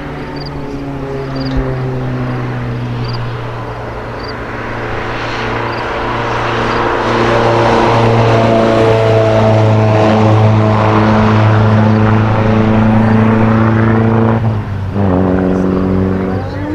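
Sports car engine running at steady revs on a race track, growing louder as it approaches, then a brief dip and a gear change near the end.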